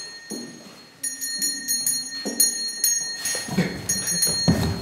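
A small hand bell rung over and over, about three strikes a second after a short pause near the start. It is the warning bell of a leper approaching. Some low knocks come near the end.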